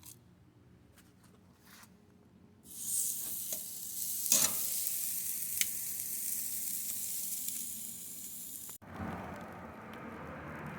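Marinated tri-tip sizzling on a hot grill, a loud hiss that starts suddenly about three seconds in, with a few sharp clicks and pops. Near the end it cuts off abruptly and gives way to a duller, lower rushing noise.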